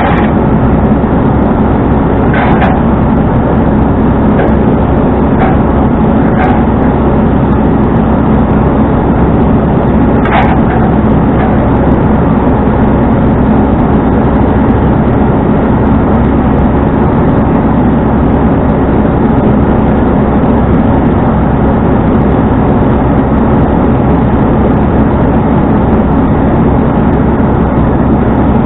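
Tow truck running on the road: a steady, loud engine drone with road noise, and a few brief clicks or rattles in the first ten seconds or so.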